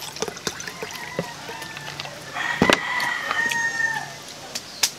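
A rooster crowing once: one long held call of just under two seconds, starting a little over two seconds in. Scattered clicks and two sharp knocks, one near the start of the crow and one near the end.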